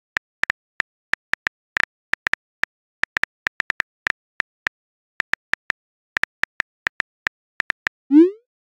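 Simulated phone keyboard tap clicks, short and sharp and irregular, several a second, as a text message is typed. Near the end a short rising whoosh, the message-sent sound.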